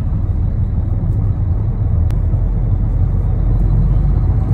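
Heavy truck's diesel engine running and its road rumble heard inside the cab while driving, a steady low drone. One brief click about two seconds in.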